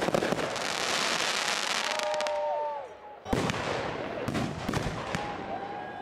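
Aerial fireworks bursting. A sharp bang at the start is followed by nearly three seconds of dense crackling. Another bang comes a little over three seconds in, then several sharp cracks.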